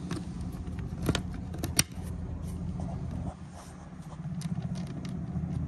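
Scattered light clicks and taps of a carbon-fibre canard being handled and fitted against a car's front bumper, over a steady low hum.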